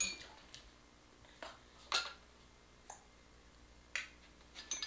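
A plastic toy knocking and clicking against a baby walker's tray: a handful of light, sharp clicks spread irregularly, some with a brief clink.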